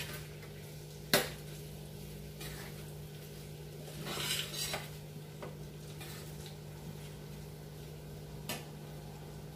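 Metal spoon stirring potato masala in a stainless steel pan, scraping and clinking against the pan. There is a sharp clink about a second in and another near the end, over a steady low hum.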